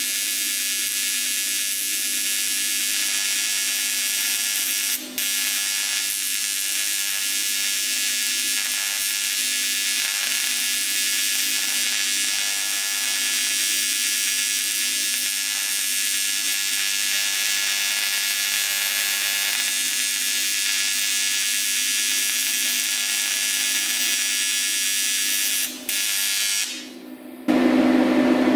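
TIG welding arc on an aluminum wheel rim, a steady harsh buzz with a high hiss as filler is laid into a crack. The arc drops out for an instant twice, then stops near the end, followed by a short louder burst.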